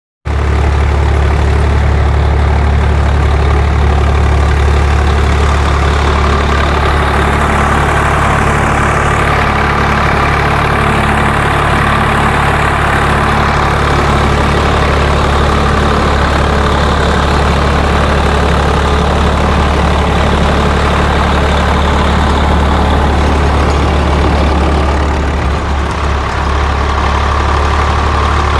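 Swaraj 744 FE tractor's three-cylinder diesel engine running steadily under load while it drives a rotavator tilling hard soil.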